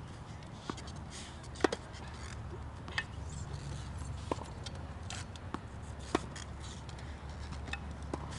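Tennis balls being hit and bouncing on a hard court: scattered sharp pops a second or so apart, the loudest about one and a half seconds in, over a steady low background rumble.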